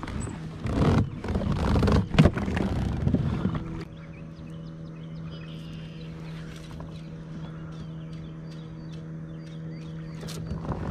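Splashing and knocking in a kayak as a freshly caught bluegill is handled, for the first few seconds. Then a steady low hum, with faint high chirps over it.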